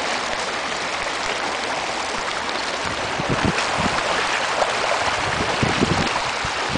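Water rushing steadily along the textured granite channel of a ring-shaped fountain. From about three seconds in, short low thuds sound over it.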